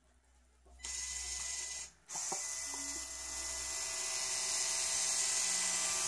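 Electric motors and plastic gearing of a LEGO Technic 4x4 crawler whirring: running for about a second, cutting out briefly, then running again steadily.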